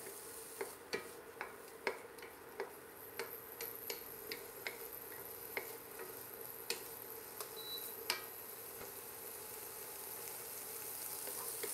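Diced vegetables sautéing in oil in a frying pan, a soft steady sizzle, while a wooden spoon stirs them, clicking and scraping against the pan. The spoon clicks stop about eight seconds in, leaving the sizzle alone.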